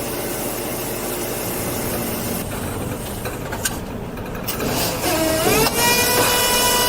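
Heavy diesel equipment running steadily. About five seconds in, a whine rises in pitch and holds, and the sound grows louder as the machine is worked.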